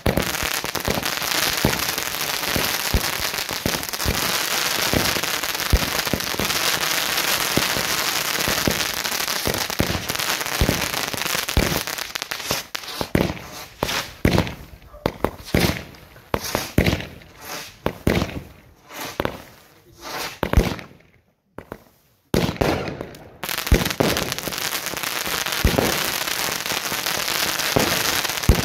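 Fireworks display heard from the firing position: a dense barrage of launches, bangs and crackle that thins out after about twelve seconds into separate bangs. After a brief pause it builds into a dense barrage again near the end.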